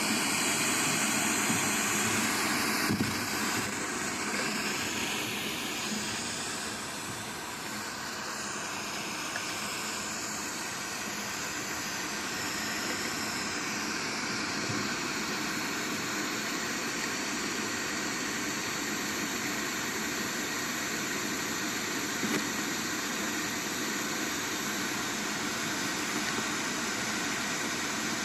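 Steady rushing noise from a pin microphone lowered 18 m down a 50 mm borehole casing, played back through a small speaker, dipping slightly for a few seconds after the start. The recording group presents it as sound coming from underground; the defense ministry's reading is wind noise.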